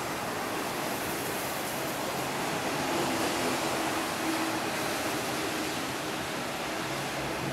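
Passenger coaches of a non-stop train rushing past the platform at speed: a steady roar of wheels on rail and rushing air, with a faint hum beneath.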